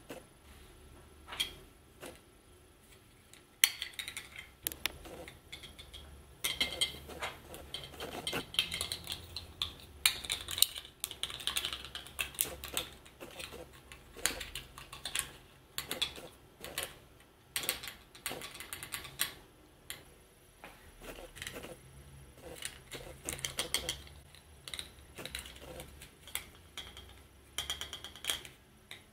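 Irregular clicks, knocks and rattles of small hard objects being handled, coming in quick clusters with short pauses between.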